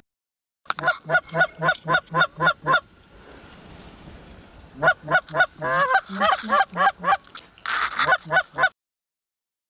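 Goose honks in quick rhythmic runs: first about nine even honks at roughly four a second, then after a short lull a second, more varied run of honks. The sound cuts off abruptly near the end.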